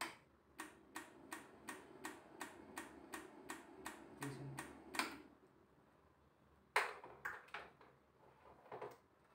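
Panel short killer in trigger mode, clicking about three times a second as it fires repeated 40-volt pulses into shorted CKV gate-drive lines of an LCD panel to burn the short away. The clicks stop about five seconds in, and a few irregular clicks follow near the end.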